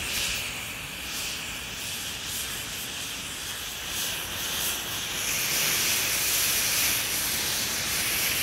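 Powdered xylitol and potassium nitrate rocket fuel burning with a steady hiss, growing louder about five and a half seconds in.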